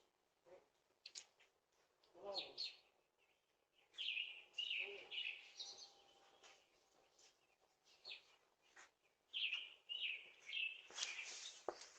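Faint bird chirps: short runs of quick high notes every couple of seconds, with a brief rushing noise and a click near the end.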